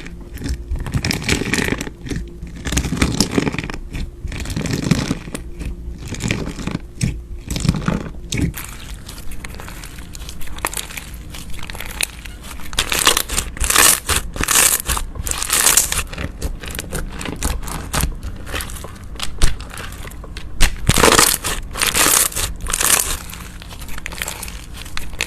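Slime being squeezed, poked and pressed by hand: irregular strokes of sticky, crackly handling sound, denser and louder in the second half.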